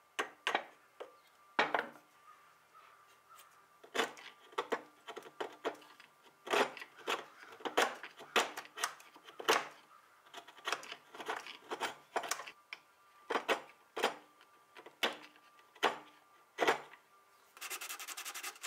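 Wood chisel scraping and paring old dried glue off the end grain of a broken table leg's joint, in short irregular strokes. Near the end it turns to a brief steady rasp of hand sanding with sandpaper.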